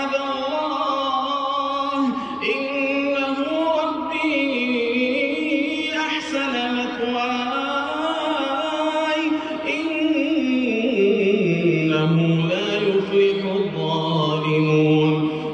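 A man reciting the Quran in melodic chant, drawing out long held notes that step up and down in pitch and drop to a lower note about ten seconds in.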